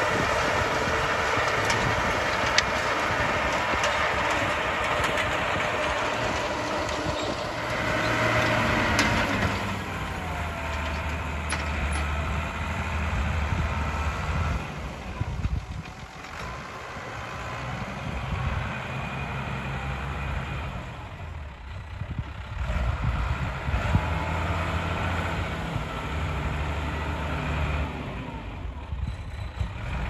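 New Holland 7840 tractor's engine running steadily under load as it drives a power-harrow combination drill across a seedbed. The sound is quieter from about a third of the way in, with brief dips as the tractor turns at the headland.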